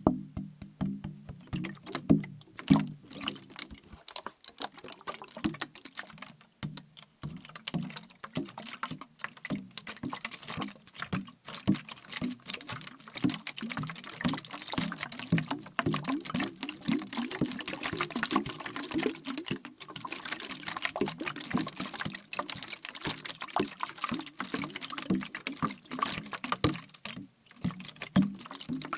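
Liquid sloshing inside a plastic bottle as it is shaken, with many quick clicks and taps on the plastic throughout.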